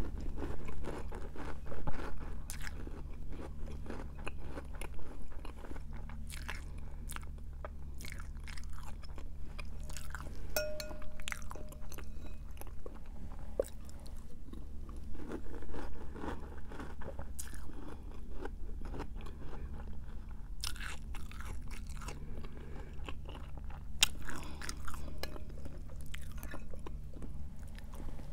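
Close-up chewing of Cap'n Crunch Christmas Crunch cereal in milk: irregular crunches and mouth sounds as spoonfuls are bitten and chewed, over a steady low hum.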